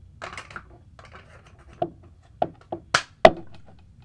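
Plastic stock of an Ares Amoeba Striker airsoft sniper rifle being fitted back onto the rifle: brief rustling handling, then about five sharp plastic clicks and knocks, the last two the loudest.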